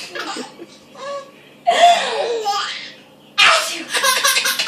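A person sneezes, a sudden loud burst with a falling pitch about 1.7 s in. About a second and a half later a baby breaks into a loud belly laugh in rapid, repeated bursts.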